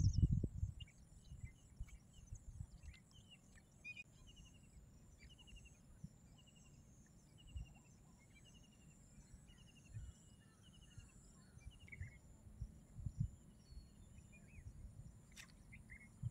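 Birds chirping: one bird repeats short, fast trills about once a second, with scattered calls from others, over a steady high insect hum. Low thumps come now and then, and there is a sharp click near the end.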